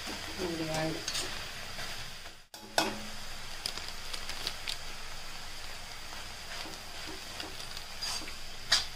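Sheep blood fry sizzling steadily in an iron kadai while a steel spatula stirs and scrapes it, with scattered clicks of the spatula against the pan. The sound cuts out for a moment about two and a half seconds in, and there are louder scrapes near the end.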